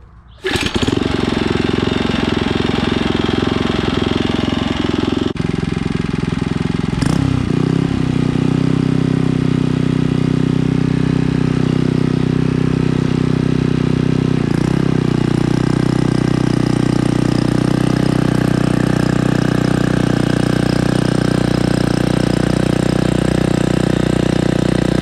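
TAZZ rotor tiller's small four-stroke engine catching about half a second in and then running loudly. Its pitch shifts a few seconds in, then it settles into a steady run.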